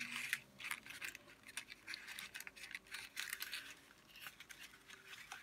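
Faint, irregular rustling and crinkling of folded paper pieces as fingers handle them and press them down onto a card base.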